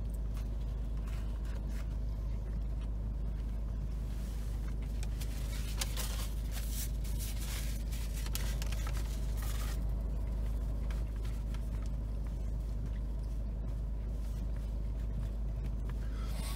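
Steady low hum of a car engine idling, heard inside the cabin. A paper napkin rustles and crinkles for several seconds in the middle.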